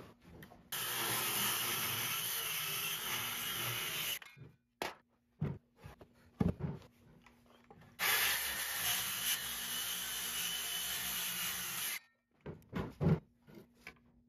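A handheld electric power tool cutting across the face of a wooden slab in two passes, each steady for about four seconds and stopping abruptly. Between the passes, knocks of the wood being handled on the bench.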